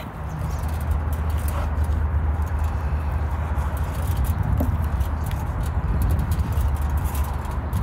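Knife cutting raw meat into chunks on a wooden cutting board, the blade knocking irregularly against the board, over a steady low rumble.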